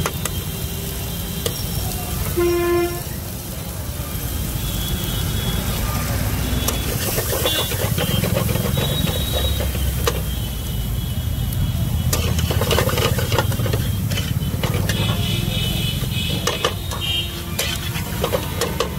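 Metal spatula scraping and clattering against a frying pan as onions, green chillies and spices are stirred, with many sharp strokes in the second half, over a steady low traffic rumble. A vehicle horn honks once, briefly, about two and a half seconds in.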